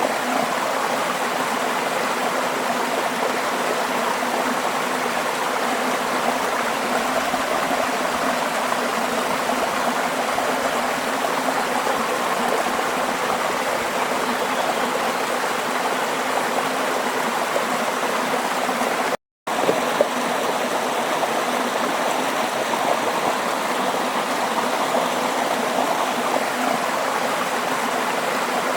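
Flowing stream water running steadily. The sound cuts out completely for a split second about two-thirds of the way through, then resumes with a couple of faint clicks.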